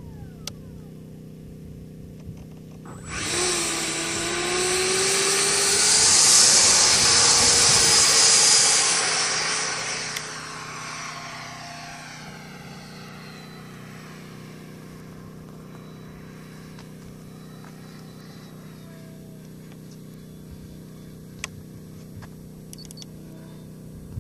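Electric ducted fan of a large RC jet, an 11-blade 127 mm unit on 14S over 8 kW, spooling up suddenly about three seconds in for the takeoff run. It is a loud rushing whine that rises in pitch as the jet accelerates and leaves the ground, then fades away over several seconds as it climbs out into the distance. A steady low hum sits underneath.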